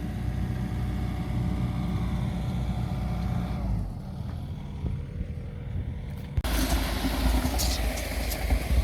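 Combine harvester engine running steadily, heard from the cab. The note drops about three and a half seconds in. About six seconds in it gives way abruptly to a rougher, noisier rumble.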